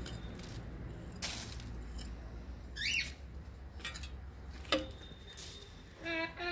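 A small hand rake scraping through loose dry soil in a few short strokes, with a sharp click just before the last one. A brief high chirp sounds about three seconds in, and a child's voice starts near the end.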